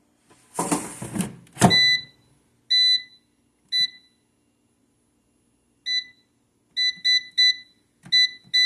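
An air fryer's basket drawer slides in and shuts with a click, then the control panel gives a series of short, high electronic beeps, about nine of them at uneven intervals, as its buttons are pressed to set the temperature and time.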